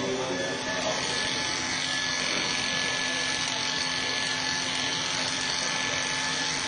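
Electric hair clippers running steadily with a constant hum as they cut a short military buzz cut up the side of the head.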